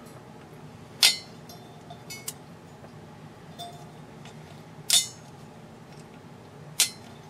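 The brittle base on the neck of a 12LP4 picture tube being broken apart by hand: three sharp cracks, about a second in, about five seconds in and near the end, with a few lighter clicks and clinks between.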